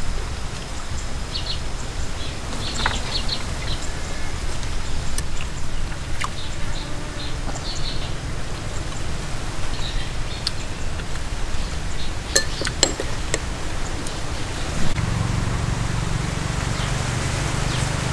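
Outdoor garden ambience: birds chirping on and off over a steady background hiss and rumble, with a few sharp clicks about six seconds in and twice near the two-thirds mark.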